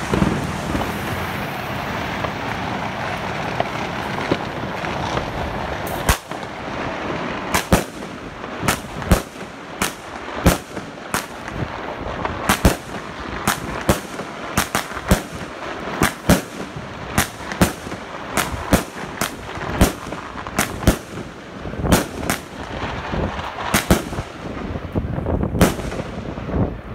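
A Wolff 16-shot consumer firework cake firing its tubes one after another, each shot a sharp launch bang followed by the pop of its burst of red and green stars, roughly two bangs a second. The shots begin about six seconds in, after a steady hiss.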